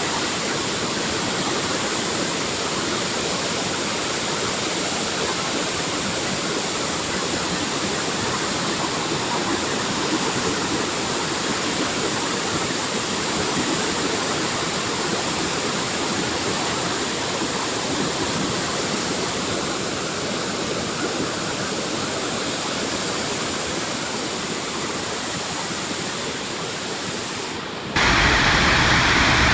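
Steady rush of water pouring from a dam release. Near the end it cuts suddenly to a louder, fuller rush of water.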